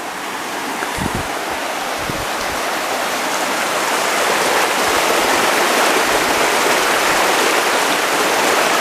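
Steady rush of falling and running water, growing louder over the first several seconds, with a couple of low thumps about one and two seconds in.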